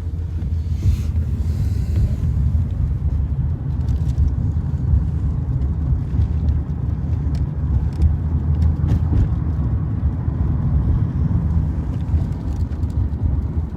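Steady low rumble of a car heard from inside the cabin, engine and road noise, with a few faint ticks.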